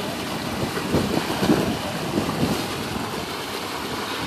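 Wind noise on the microphone, an even rushing with irregular gusts.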